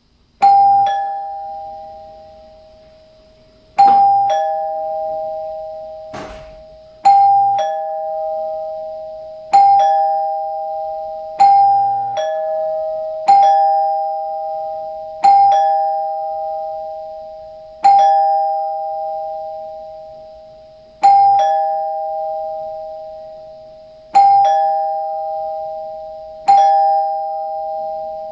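Newly installed Dimango/Thomas & Betts two-note electric door chime being tested: a higher note struck, then a lower one about half a second later, each ringing and fading. The ding-dong repeats about eleven times, a few seconds apart.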